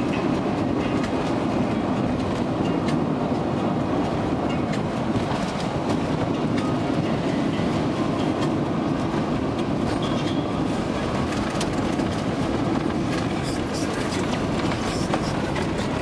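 Steady road noise inside a moving car: tyres rolling on a wet, slushy road and the engine's low drone, with a few light clicks and knocks from the road surface.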